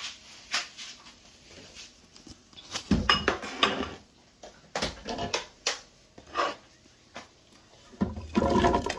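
Kitchen clatter of dishes and a blender jar being handled on a counter: scattered clicks and knocks, with two heavier thuds about three seconds in and near the end.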